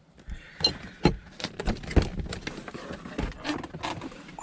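Irregular clicks, knocks and scrapes of hand tools and car parts being handled, with the loudest knock about two seconds in.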